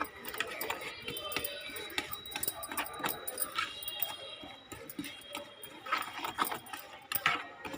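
A spoon clinking and scraping against a bowl in quick irregular strokes as dry gram flour and spices are stirred together.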